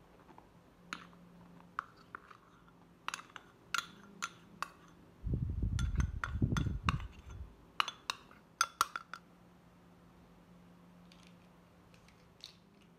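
Metal spoon clinking and scraping against glass bowls as rice flour is spooned from a small bowl into a larger one: a scatter of short, sharp clinks, thickest in the middle, with a low rumble for about two seconds a little before halfway.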